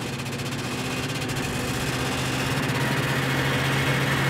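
Snowmobile engine running steadily while riding across the ice, growing gradually louder.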